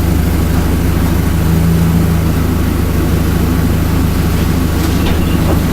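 1992 Honda car engine idling steadily, with a couple of light clicks near the end.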